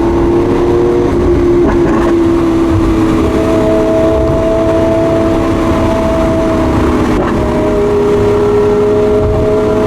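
Lamborghini Aventador S's naturally aspirated V12 engine with stock exhaust, running at nearly steady revs as a constant drone over low road rumble, heard from inside the car. Its note shifts slightly a couple of times.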